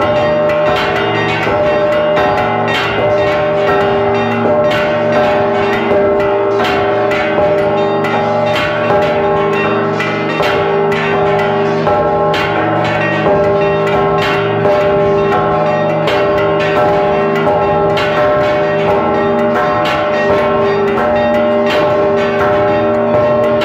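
Church bells ringing a rapid repique, heard close up: the clapper of a large tower bell, worked by hand on a rope, strikes the rim over and over while other bells ring along, their tones at several pitches overlapping into one continuous ring.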